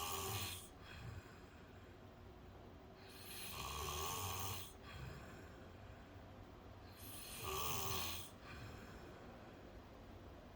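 A sleeping man snoring: three snores, each about a second and a half long and coming roughly every four seconds, each a low rumble with a breathy hiss, with quieter breathing between.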